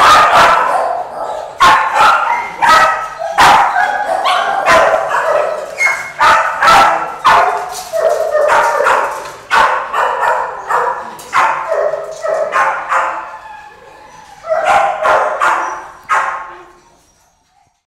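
Many kennelled dogs barking at once, their barks overlapping in a constant din. The barking fades out near the end.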